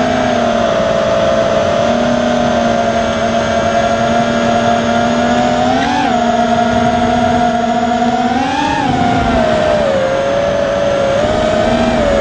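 An FPV quadcopter's T-Motor F60 III brushless motors and propellers whining steadily, a high engine-like tone with several overtones. The pitch climbs briefly as the motors speed up about six seconds in and again near nine seconds, then dips for a moment.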